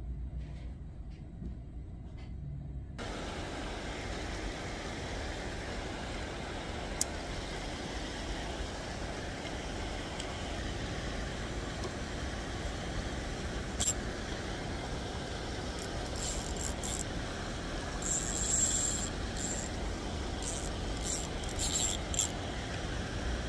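Steady rush of water flowing over a river weir, starting about three seconds in after a quieter low hum, with several sharp clicks in the second half.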